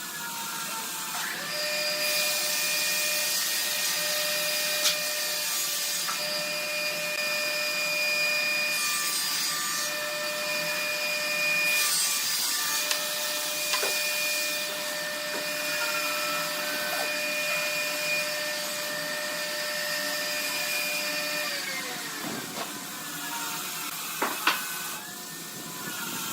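An electric power tool runs at a steady speed with a high whine and a hiss as it works wood. Near the end its pitch falls as the motor winds down, and a few sharp knocks follow.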